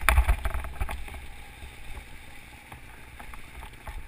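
Mountain bike riding over a leaf-covered forest trail: tyres crackling through dry leaves, with knocks and rattles from the bike bumping over the ground. The knocks and rumble are loudest in the first second, then settle into a steadier rolling crunch with scattered clicks.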